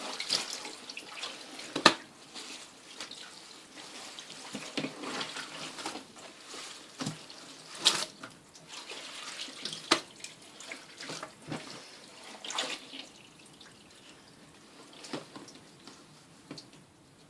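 Water splashing and dripping in a twin tub washing machine, with irregular sharp splashes among a steady wash of water sound that tapers off toward the end.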